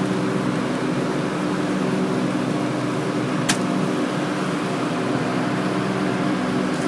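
Daikin packaged air conditioner running with a steady hum, with a single sharp click about halfway through.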